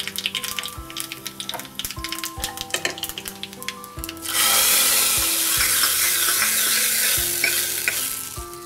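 Tempering of mustard seeds, cumin and a dried red chilli crackling and spluttering in hot oil in a small pan. About four seconds in it is poured into the hot sambar and sizzles loudly, then dies down near the end.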